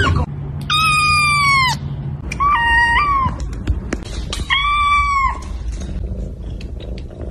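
A cat meowing three times, about two seconds apart, each call high-pitched and under a second long.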